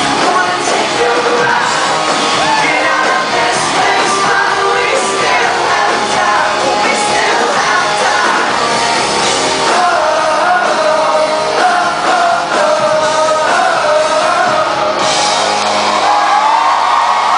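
Live rock band playing a song with a sung lead vocal, loud and full. About fifteen seconds in, the band thins out, losing its deepest bass.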